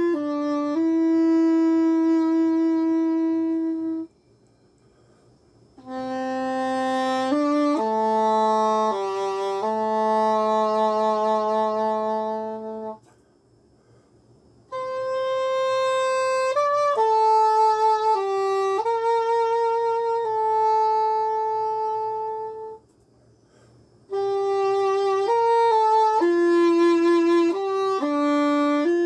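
English horn playing a slow solo melody of long held notes, in three phrases separated by short rests.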